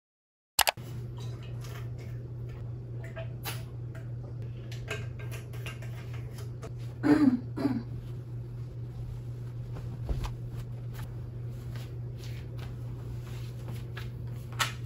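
Soft rustling and handling of bedding as a blanket and pillows are moved about, over a steady low hum of room tone. A short pitched sound comes twice, about seven seconds in.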